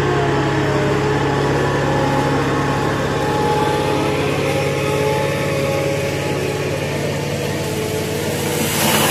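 Liebherr HS 853 crawler crane's diesel engine running steadily with a low hum as the crane works a dragline bucket.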